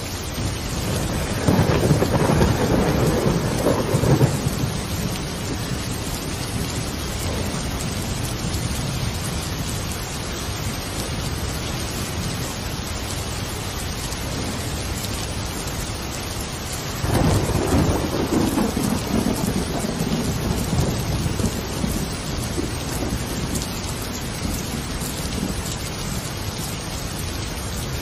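Steady rain with two rolls of thunder, one starting near the beginning and one a little past the middle, each rumbling for a few seconds.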